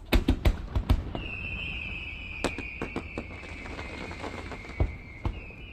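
Fireworks going off: a quick run of about six sharp bangs in the first second, then a long, high, slightly falling whistle with single cracks scattered over it.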